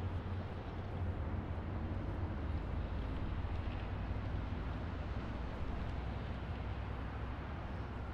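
Steady low rumble of distant highway traffic, an even wash of tyre and engine noise heaviest in the deep bass with no single vehicle standing out.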